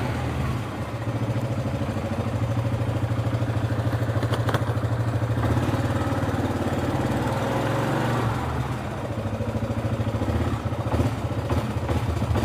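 ATV engine running steadily while the machine is ridden along, with a brief dip in engine level about two-thirds of the way through and a couple of short knocks or rattles.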